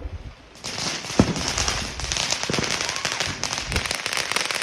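Fireworks crackling: a dense rattle of rapid small pops begins about half a second in and keeps going, with one sharper bang about a second in.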